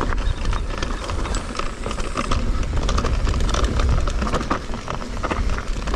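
Electric mountain bike descending a loose, rocky trail: low tyre rumble and wind noise with a dense, irregular rattle. The rattle is the clatter that the Fazua 60 motor makes on descents.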